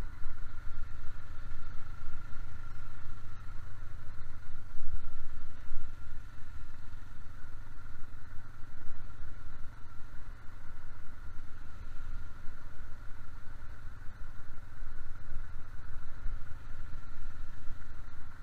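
ATV engine running steadily as it tows a second vehicle along a dirt track, with a constant whine over a heavy low rumble on the helmet microphone.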